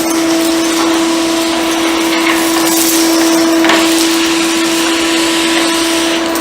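Philips PowerLife 2000 W bagged vacuum cleaner running steadily on its minimum power setting while cleaning a hard floor: a steady motor hum with a rushing hiss of air, and a couple of faint clicks about two and four seconds in.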